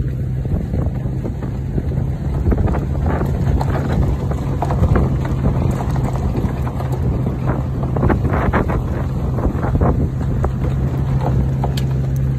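Vehicle engine running at a steady hum while driving along, with wind buffeting the microphone in gusts.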